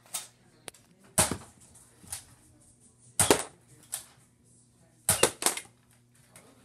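Nerf blaster firing foam darts at a LEGO tower: a run of sharp pops, the three loudest about two seconds apart, with softer pops between them.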